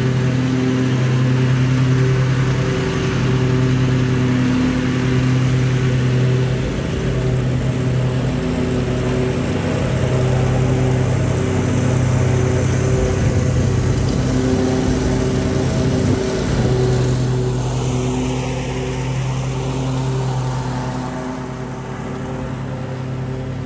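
Lawn mower engine running steadily at working speed, its hum swelling and easing slightly as it works.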